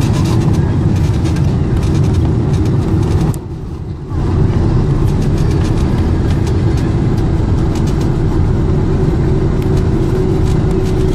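Cabin noise inside a Boeing 747-400 rolling along the runway after landing: a loud, steady rumble with a steady hum, which drops away briefly about three and a half seconds in.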